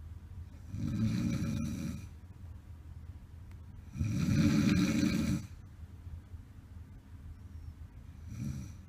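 A sleeping person snoring: two long snores about three seconds apart, each well over a second, then a shorter, fainter one near the end.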